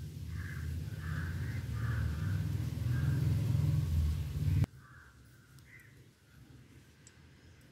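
Crows cawing several times in short calls, with a few more near the end. Under the first half is a low rumble that builds and then cuts off abruptly a little over halfway through.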